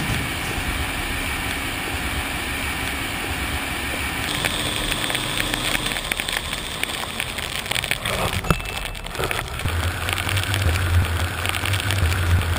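Snowplow truck at work: a steady engine drone under a noisy rush of plowing and road noise, changing abruptly several times.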